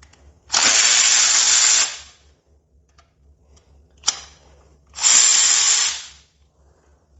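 A power tool is run in two bursts of about a second and a half each, with a sharp click between them, likely while working the primary drive cover's fasteners.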